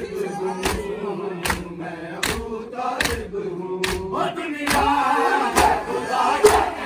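Crowd of men beating their chests in unison in matam, about one sharp slap every three-quarters of a second, over a noha chanted by the group. Toward the end the voices grow louder and fuller into a crowd shout.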